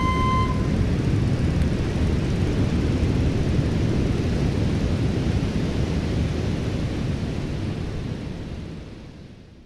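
Steady low rumbling noise that fades out over the last two seconds. A held flute note stops about half a second in.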